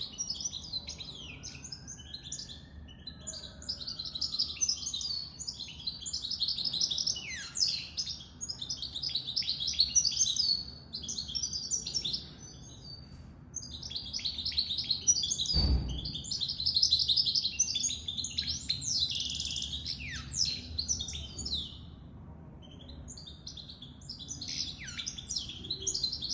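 Goldfinch mule, a goldfinch × canary hybrid, singing in long twittering phrases broken by short pauses; the bird is out of the moult and in song. A single thump about two-thirds of the way through.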